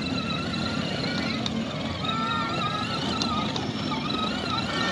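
Battery-powered ride-on toy motorcycle driving over brick paving: its small electric motor running and its plastic wheels rumbling steadily, with faint wavering high sounds in the background.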